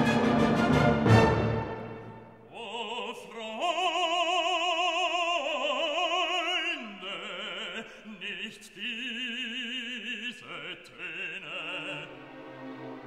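Background music: an orchestral passage dies away about two seconds in, then an operatic voice sings long held notes with wide vibrato.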